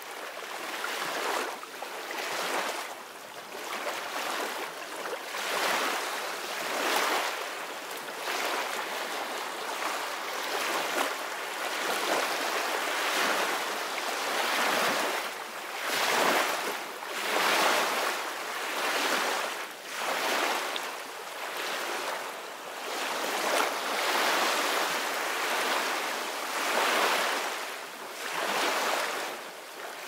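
Small waves breaking and washing up a sandy beach, a hissing surf that swells and ebbs in irregular surges every couple of seconds.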